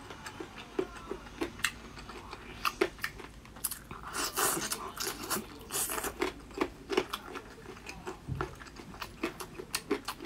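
Chewing and crunching of sour-and-spicy chicken feet: a steady run of short, wet crunches and clicks, with a longer, noisier stretch of chewing about four seconds in.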